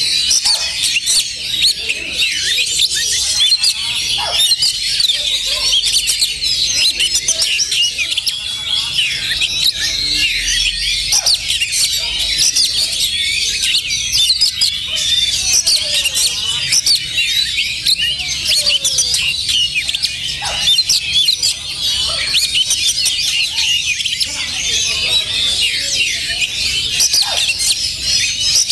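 Oriental magpie-robins singing together, a dense unbroken tangle of quick, high whistled phrases with no pause.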